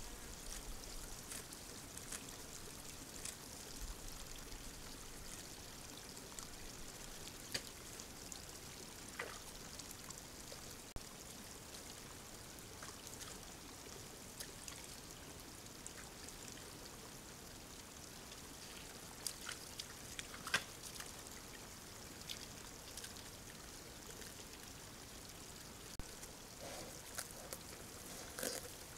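Sambar stag moving through a muddy wallow and wet grass: faint watery splashes and scattered sharp ticks of steps over a steady hiss, with a few louder knocks near the end as it comes close.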